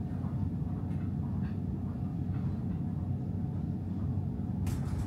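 Steady low hum inside a Stockholm metro car standing at a platform, from the car's ventilation and on-board equipment, with a few faint clicks near the end.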